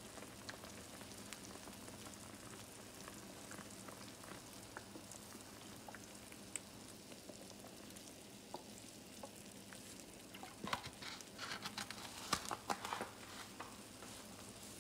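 Pork adobo simmering and sizzling in a frying pan of liquid on a gas stove: a faint steady hiss with scattered small pops, turning busier with a run of louder crackles from about ten to thirteen seconds in.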